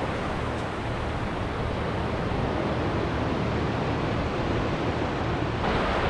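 Small surf waves breaking and washing up over wet sand at the water's edge, a steady rushing hiss with a low rumble under it. About five and a half seconds in, a fresh wash comes in and the rush turns brighter and louder.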